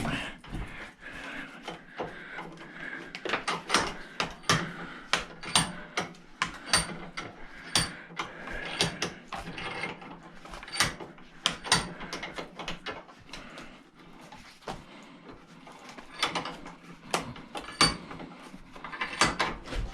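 Hammer striking a chisel against the metal parts of an old battery charger: a string of sharp, irregular metallic taps, one or two a second, some with a brief high ring, with a quieter spell about two thirds of the way through.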